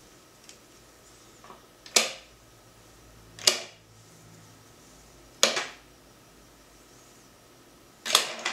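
Sharp, short clicks of small screws being set into the screw holes of a plastic power-pack case, one every second and a half to two and a half seconds, the last a quick double.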